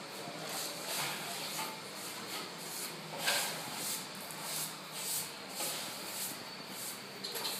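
Steel plastering trowel scraping over a white set plaster wall in repeated strokes, roughly two a second.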